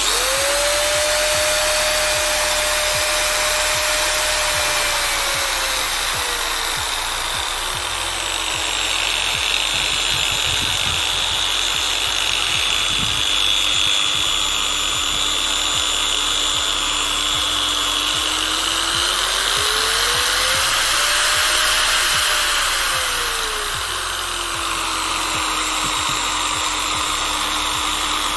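Angle grinder switched on and running free at full speed, then slowed by a variable speed controller: its whine drops in pitch a few seconds in, climbs back to full speed about twenty seconds in, and drops to the low speed again shortly after.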